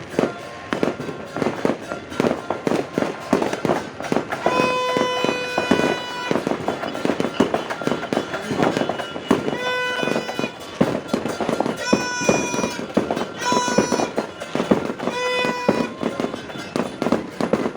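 Firecrackers and fireworks going off continuously in rapid, dense cracks and bangs. Over them a steady-pitched horn sounds about five times, each note lasting from half a second to a second and a half.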